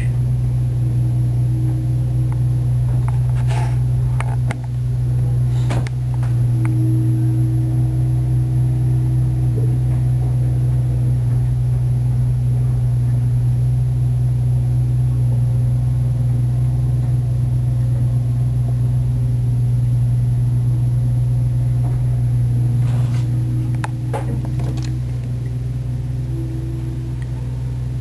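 Diesel engines of two bulldozers running steadily, a loud constant low drone. A few sharp metallic clanks cut through it about four and six seconds in and again around twenty-three to twenty-five seconds in.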